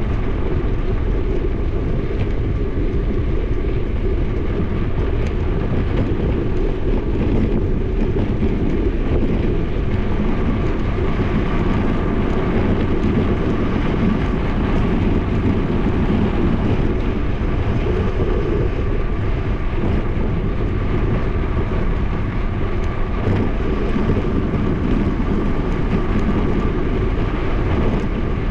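Steady wind rush buffeting an action camera's microphone as a bicycle coasts downhill at speed, mixed with tyre noise on asphalt. A faint steady whine sits underneath, clearest in the second half.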